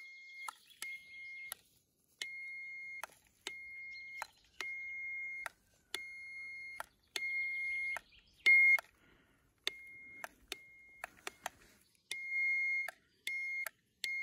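Handheld cable tracker probe giving a steady high beep that cuts in and out in irregular stretches as it is swept over the robotic lawnmower's buried loop signal wire, tracing the wire to find where it is broken. One stretch about 8.5 seconds in is louder than the rest.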